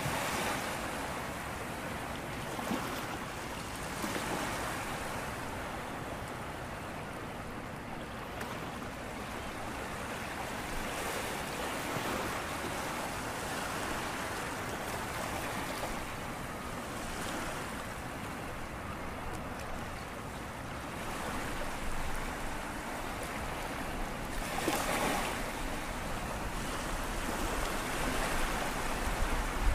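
Small sea waves breaking and washing over a shallow sandy shore and rocks: a steady hiss that swells and eases as each wave comes in, with a louder wash near the end.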